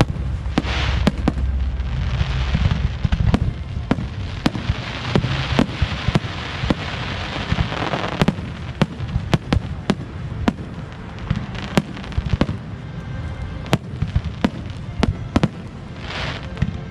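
Aerial fireworks bursting: a rapid, irregular run of sharp bangs, with crackling hiss from crackle effects swelling in between.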